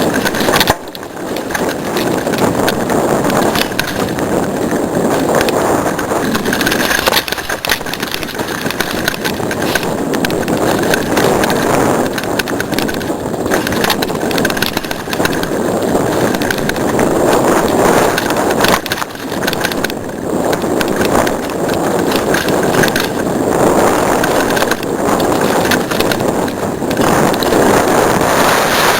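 A mountain bike rolling fast over a rough dirt and rock trail: a steady rush of tyre noise with constant clattering and knocks from the bike.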